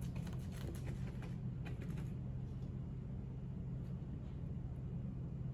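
Brush dabbing epoxy resin into fibreglass cloth, a run of soft quick taps in the first two seconds that then thin out, over a steady low hum.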